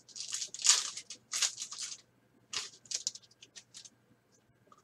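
Plastic wrapper of a sports card pack being torn open and crinkled, in a run of loud rustling crackles over the first two seconds. Softer ticks and shuffles follow as the cards are slid out and flicked through.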